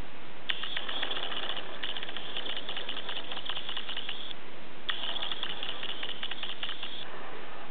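Marker pen scratching across paper in three stretches of drawing strokes, each a rapid crackly rasp, over a steady hiss.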